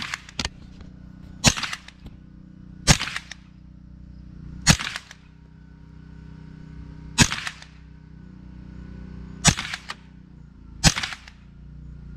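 Semi-automatic AR-15 with a CMMG .22 LR conversion bolt firing 40-grain Aguila .22 LR rounds one at a time. Seven sharp cracks come at an uneven pace, one every one and a half to two and a half seconds, each with a short echo.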